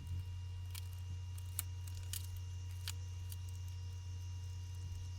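Steady low electrical hum with a few faint, scattered clicks in the first three seconds.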